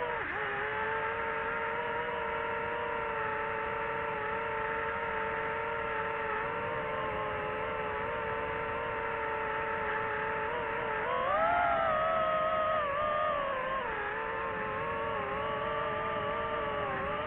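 DJI FPV drone's motors and propellers whining steadily. The pitch rises with throttle about eleven seconds in and drops back a few seconds later.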